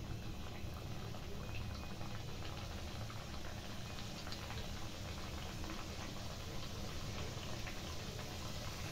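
Round moong dal dough discs deep-frying in hot oil in a kadai: a steady sizzle with fine crackling, over a low steady hum.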